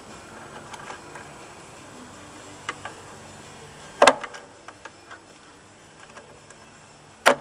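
Razor blade trimming excess strands off cured fiberglass: scattered light scratchy ticks over a faint low hum. Two sharp, loud clicks stand out, about four seconds in and again near the end.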